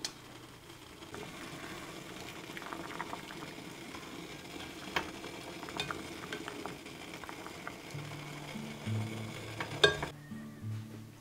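Water simmering in a pan as bagels are poached, with a plastic spatula clicking and scraping against the pan while it turns them and lifts them out, and one sharp knock near the end. Soft guitar music comes in past the middle.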